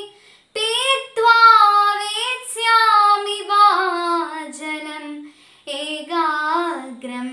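A girl's solo voice, unaccompanied, singing a Sanskrit shloka in a slow melody with gliding, ornamented pitch. She breaks off briefly just after the start and again about five seconds in.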